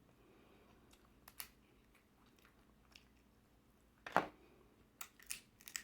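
A person chewing food from a seafood boil, quietly, with a few sharp clicks: a couple a little over a second in, the loudest about four seconds in, and a quick cluster near the end.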